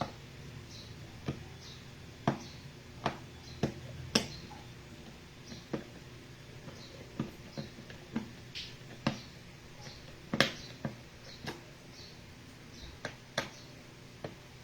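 Sharp, irregular clicks and taps from a small screwdriver working the bottom-panel screws of a laptop, about one click a second.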